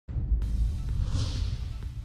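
Intro music with a strong, deep bass and a swelling whoosh about a second in.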